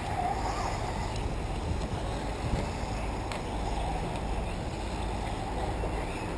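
Wind rumbling on the microphone over the faint, steady running of radio-controlled off-road cars racing on a dirt track, with a couple of light clicks.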